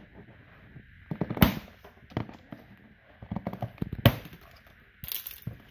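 Scissors cutting the plastic packing straps on a toy train set's plastic storage box, with two sharp snaps about one and a half seconds and four seconds in, and lighter clicks and rustling between them.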